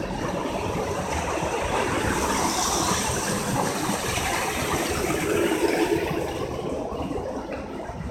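A car passing on a wet road: the tyre and engine noise swells through the middle and fades away near the end.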